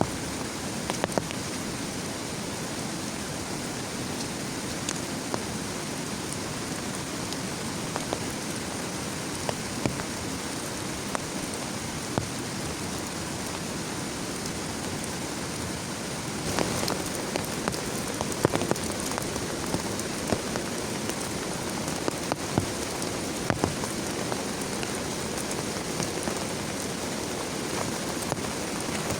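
Heavy rain falling steadily, with many single drops clicking sharply on a nearby surface. It grows a little heavier a bit past halfway.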